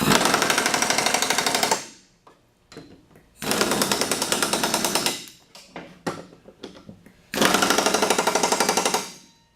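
Impact wrench hammering in three bursts of about two seconds each, run on its lowest setting to drive a mower blade bolt snug before it is torqued to spec.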